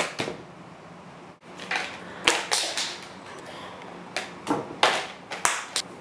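Plastic tray of markers knocking and clattering against a baby's plastic high-chair tray as he grabs and tips it: a scatter of short, sharp clicks and knocks, several in quick succession.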